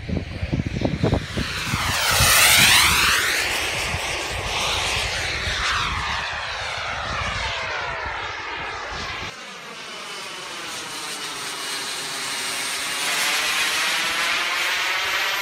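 Radio-controlled model turbine jet making a low, fast pass: its jet rush swells to its loudest about two and a half seconds in and sweeps in pitch as it goes by. After a sudden change about nine seconds in, it carries on as a steadier turbine rush with a thin, high whine.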